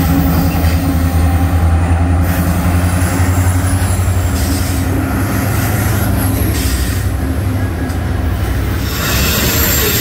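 Canadian National freight train's lead diesel locomotives passing close by, their engines giving a loud low steady drone that fades after a few seconds into the steady noise of the train's wheels running on the rails.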